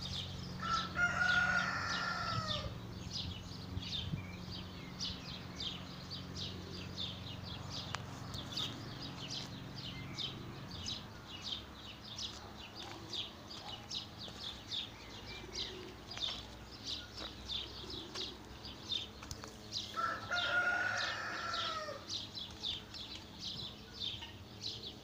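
A rooster crowing twice, about a second in and again about twenty seconds in, each call lasting a little under two seconds, over continual rapid high chirping.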